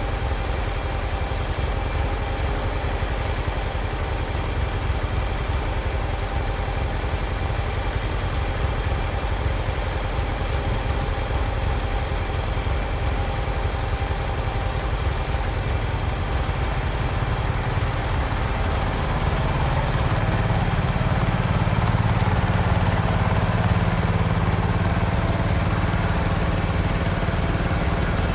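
Garden tractor engine idling steadily. About two-thirds of the way through, a low hum comes in and the engine sound grows a little louder.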